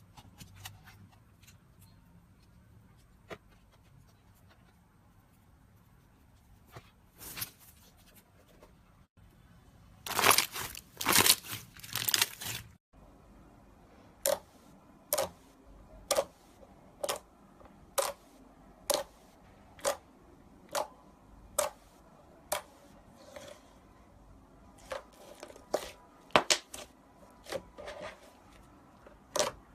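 Slime being handled: a burst of loud crackly, tearing noise, then a run of short pops about once a second, turning irregular near the end.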